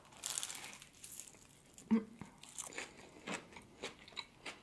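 A bite into a crispy puff pastry glazed with maple syrup and pecans: a crunch in the first second, then chewing with scattered small crunches and mouth clicks.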